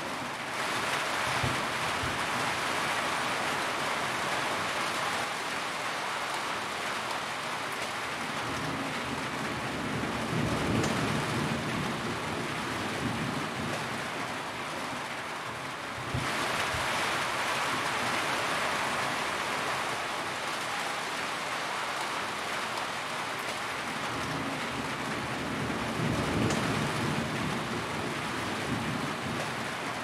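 Steady rain on a metal roof, an even hiss of drops. The hiss turns suddenly brighter about sixteen seconds in. Low rumbles come near ten seconds and again near twenty-six.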